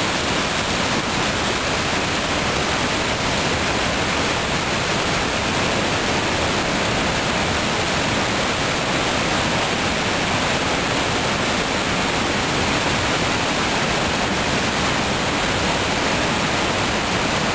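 Monsoon floodwater pouring over a low concrete weir and churning down a rocky river channel: a loud, steady rush of white water with no letup.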